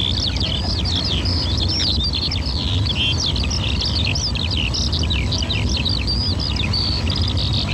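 Many birds chirping and chattering continuously as a dense chorus of quick high calls, over a steady low rumble.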